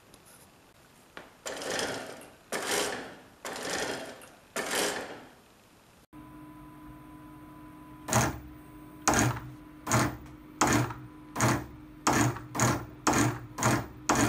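Brushless-motor, 3D-printed cycloidal-gearbox robot actuator whirring in four short strokes about a second apart as it swings a 3 kg test load of about 10 Nm. Then a robot leg driven by these actuators works rapidly, with a steady hum under a sharp knock on each stroke; the knocks come faster toward the end.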